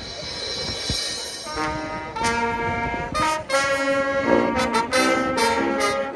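High school marching band's brass section playing loud, held chords in a fanfare: a swell builds for the first second or so, then the brass comes in about a second and a half in, with several short cut-offs between the held chords.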